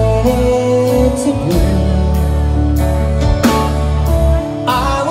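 Live rock band playing through a PA: electric guitars, bass and keyboard holding chords over drums, with a sung vocal line. Drum hits land every second or so.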